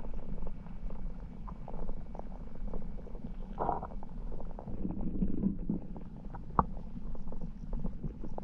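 Muffled underwater sound of river water picked up by a submerged camera: a steady low rumble with scattered small clicks and a couple of short gurgles about halfway through.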